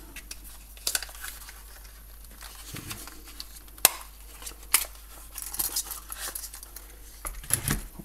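Metal handcuffs being handled: scattered light clicks and clinks, with two sharp clicks about four and five seconds in and a flurry of small clicks near the end.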